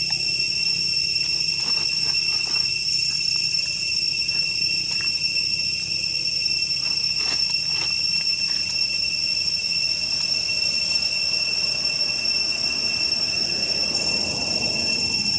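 Steady high-pitched insect chorus, crickets or cicadas, holding a few fixed tones, with a few faint clicks and a brief rustle near the end.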